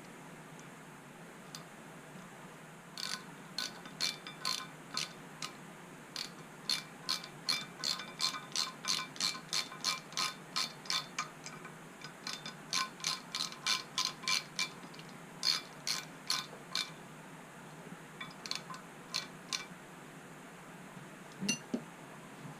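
Sharp metallic clicks in a long irregular run, about two or three a second, starting about three seconds in, with a few scattered clicks near the end.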